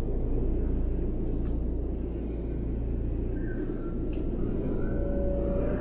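Steady low rumble of background noise, with faint wavering high tones coming in about three seconds in.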